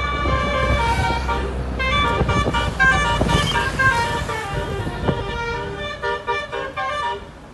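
Indonesian 'telolet' multi-tone musical air horn playing a tune of held notes that change every fraction of a second, with a low engine rumble underneath.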